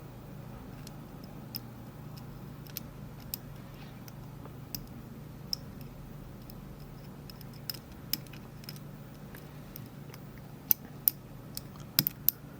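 Irregular small metallic clicks and ticks of a lock pick working the pins inside a Rav Bariach LocXis pin-in-pin euro cylinder, with a cluster of sharper clicks near the end.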